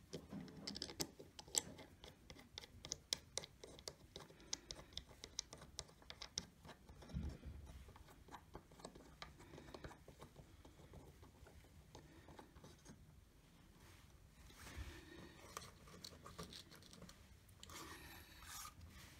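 Faint, irregular small clicks and scrapes of plastic parts being handled on the Rockit 88 delid/relid tool as its relid clamp is fitted and the thumb knob screwed down to clamp the lid onto the CPU. The clicks come thick in the first six seconds or so, then thin out to light rustling.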